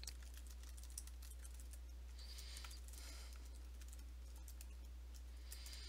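Faint, irregular clicking of computer keyboard keys being typed, fastest in the first three seconds, over a steady low hum.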